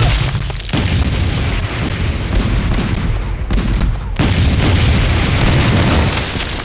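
Artillery shells exploding on a trench position: several heavy booms in quick succession, each running into the next over a continuous low rumble.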